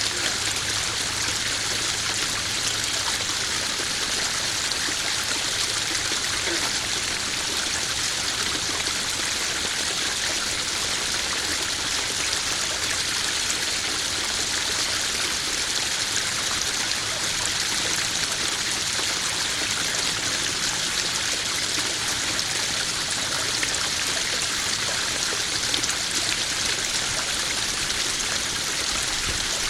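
Small garden pond waterfall splashing and trickling steadily into the pond.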